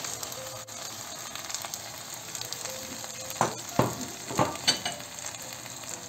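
Green beans with onions and tomato paste frying in olive oil in a pot, sizzling steadily as crushed tomato is tipped in on top. A few sharp knocks come a little past halfway.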